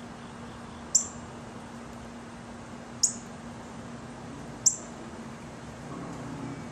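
Hummingbird giving short, sharp, high-pitched chip notes, three of them spaced a couple of seconds apart.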